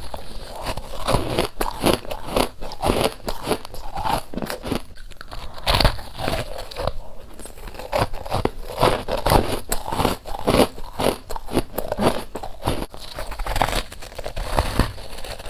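Frost being bitten and chewed: a rapid, irregular run of crisp crunches and crackles heard up close.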